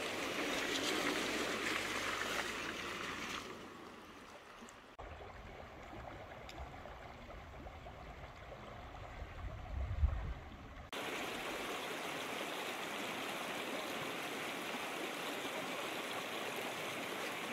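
Running water in three cut-together takes: water splashing and sloshing around a vehicle's tyres as it fords a shallow creek, then a quieter stretch of low wind rumble on the microphone with one thump about ten seconds in, then the steady rushing of a small rocky mountain stream, which cuts in suddenly.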